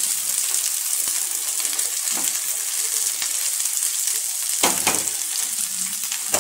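Hot oil sizzling in a kadai as shredded carrot and beetroot are tipped in and stirred with a wooden spatula, with a few knocks of the spatula against the pan near the end.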